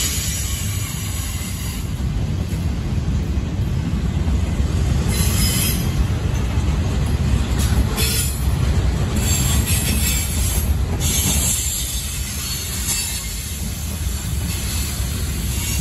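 Freight cars rolling past, a steady low rumble of wheels on rail with high-pitched wheel squeal that comes and goes several times.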